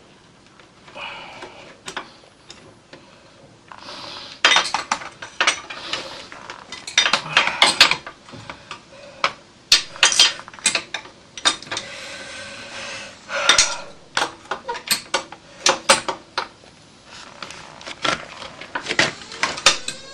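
Metal tools and parts clinking and clattering against each other in irregular bursts of sharp clicks, sparse at first and busier from about four seconds in.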